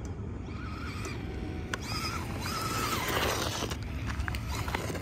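Electric motor of a 1/4-scale RC dirt bike whining faintly, its pitch wavering up and down in short bursts as the throttle is worked, over a steady low outdoor rumble.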